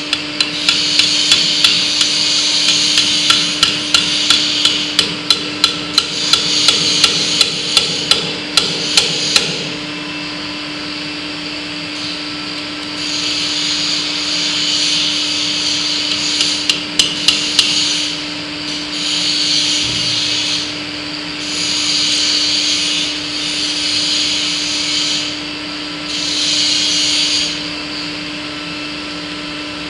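Hammer blows on a steel punch driving at the roll-out cylinder's pin and bushing, about three strikes a second for roughly ten seconds, then a few quicker taps a little past halfway. A hissing noise comes and goes in stretches of a few seconds over a steady hum.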